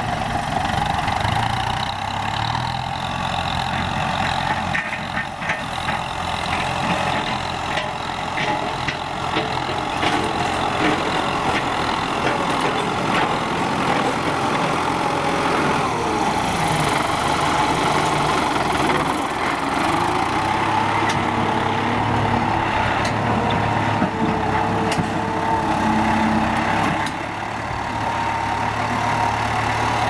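Kubota M9540 tractor's four-cylinder diesel engine running steadily under load as it pulls a disc plough through dry soil, with occasional clicks and clatter.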